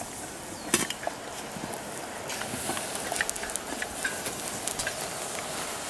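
A sharp knock just under a second in, then scattered light clicks and taps over a steady hiss.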